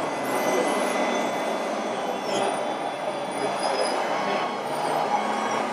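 Steady din of a busy hall with RC model trucks and construction machines running, and a thin high whine that wavers up and down for a while in the middle.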